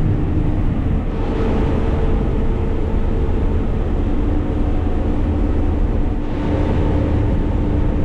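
Cotton stripper running steadily as it harvests, heard from inside the cab: a continuous engine and machinery drone with a steady hum.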